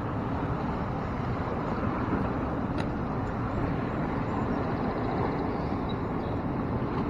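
Steady rushing noise of the river current, with wind on the microphone, and one faint click about three seconds in.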